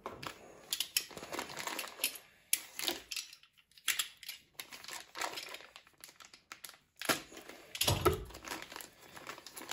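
Pink plastic antistatic bag holding a circuit board crinkling and rustling as it is handled and opened, in irregular bursts with a short lull partway through.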